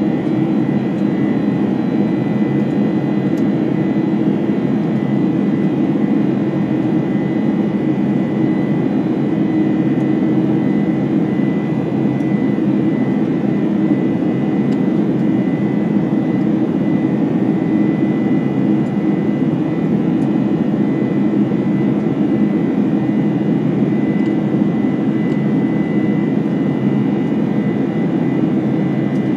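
Steady jet engine drone heard inside the upper-deck cabin of a Boeing 747-400 powered by four General Electric CF6-80C2B1F turbofans. It holds an even level throughout, with a thin steady high tone over it.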